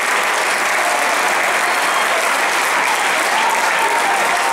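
Football stadium crowd applauding in a steady, even wash, greeting a goal.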